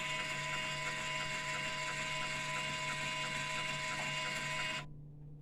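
UV printer's internal motor mechanism running steadily with a whirring hum and a regular light ticking, as during a head-clean cycle, then stopping abruptly near the end.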